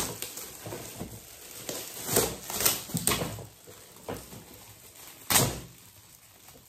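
Metallic foil gift wrap crinkling and tearing as presents are unwrapped by hand: irregular rustling with several sharp rips, the loudest a little after five seconds in.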